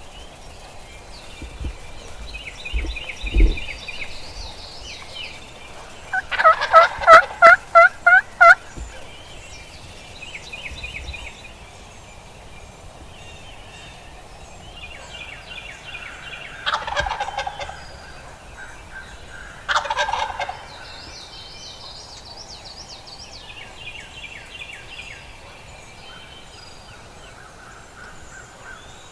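A wild turkey gobbling loudly with a rapid rattling call about six seconds in, then two shorter gobbles later on. Small songbirds sing faintly throughout.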